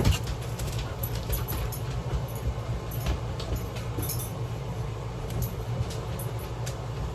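Someone eating a strawberry Pop-Tart: small clicks and crinkles of biting and handling the pastry over a steady low rumble.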